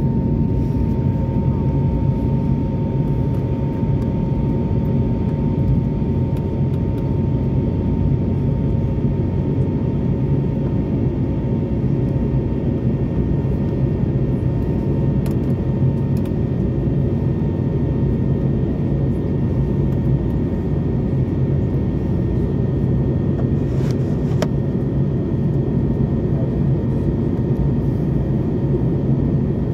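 Airliner cabin noise in flight: a steady rumble of engines and rushing air with a faint steady whine.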